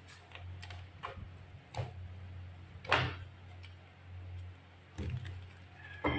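Tarot cards being gathered from a wooden tabletop, squared and shuffled by hand: a handful of irregular taps and card clicks, the loudest about three seconds in, over a steady low hum.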